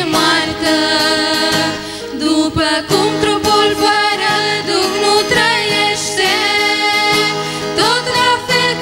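Three women singing a hymn together, accompanied by a strummed acoustic guitar.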